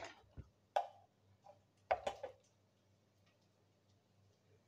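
A handful of sharp clicks and taps from a spice jar and cookware being handled as ground spices go into the pot, bunched in the first two and a half seconds, then it goes quiet.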